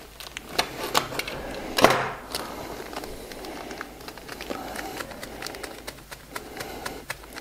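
Light rustling and clicking of loose foliage flock poured from a plastic packet into a container, with one louder rustle about two seconds in.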